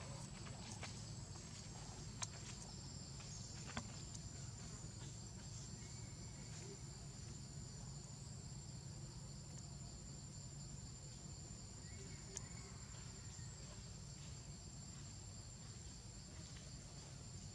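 Steady, high-pitched drone of forest insects holding one tone, over a low steady rumble, with a few sharp ticks about two and four seconds in and again near twelve seconds.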